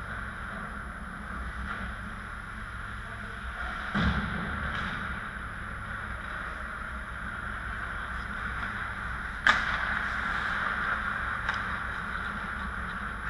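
Indoor ice rink during a hockey game: a steady arena hum, with a few sharp knocks of sticks and pucks on the ice and boards. A dull thud comes about four seconds in, and the loudest crack about nine and a half seconds in.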